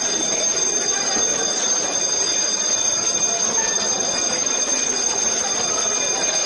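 Electric alarm bell ringing continuously, a steady clanging of several high tones held without a break, over the noise of a crowd moving through the building.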